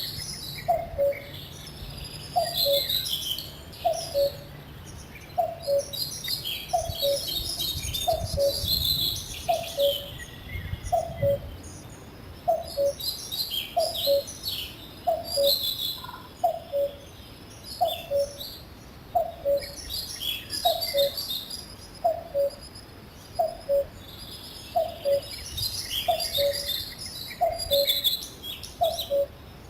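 A common cuckoo calling "cu-ckoo" over and over, a falling two-note call repeated about every second and a half. Smaller songbirds chirp and trill high above it.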